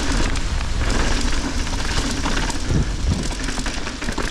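Heavy rain falling, with many drops spattering close to the microphone over a low rumble.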